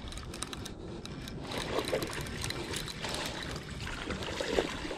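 Water splashing and trickling as a hooked fish is drawn in through the shallows, with light ticking from a spinning reel being cranked, strongest in the first second or so.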